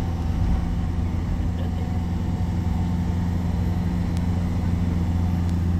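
Steady engine and road rumble heard inside the cabin of a moving minibus.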